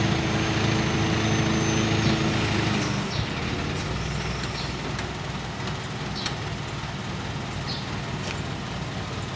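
Aichi manlifter truck's engine running to drive the boom hydraulics while the boom control levers are worked; a steady whine under load stops about three seconds in, and the engine runs on more quietly with a few light clicks.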